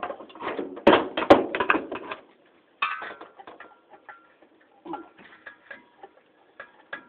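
A few loud metal clanks and knocks against the ceiling fan's housing, then a power screwdriver clicking steadily, about three or four clicks a second over a faint whine, as it works against tightly sunk screws.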